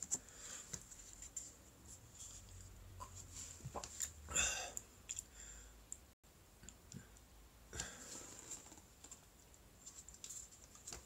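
Faint scattered small clicks and rustles, with one louder rustle about four seconds in.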